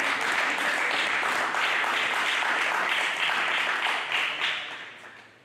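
Spectators applauding at the end of a table tennis rally, the clapping dying away near the end.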